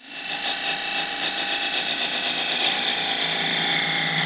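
Narrow parting tool cutting a thin groove into a spinning wood blank on a lathe: a steady scraping hiss of the cut with a faint machine whine under it. It starts abruptly.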